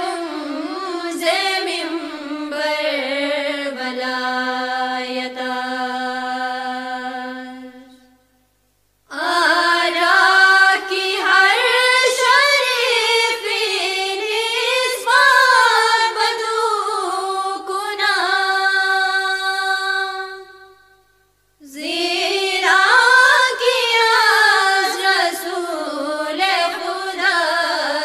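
A single voice singing a Farsi qasida without accompaniment, in long phrases of held and wavering notes. The voice stops for a brief pause twice, about eight seconds in and again about twenty-one seconds in.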